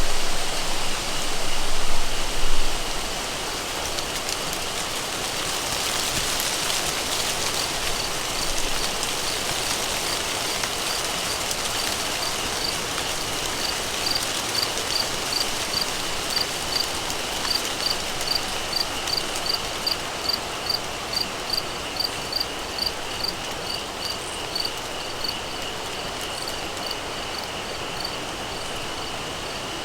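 Outdoor insect chorus: a steady high insect trill, joined through the middle by a cricket chirping evenly about two or three times a second, over a steady hiss. The hiss is louder for the first few seconds.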